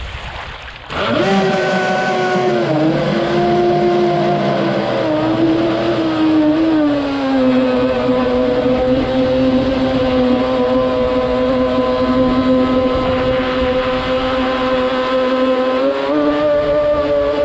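A boat's motor running steadily under throttle as a pitched whine. It cuts out briefly near the start, then comes back in with a rising pitch. The pitch drops to a lower steady note around seven seconds in and rises a little near the end.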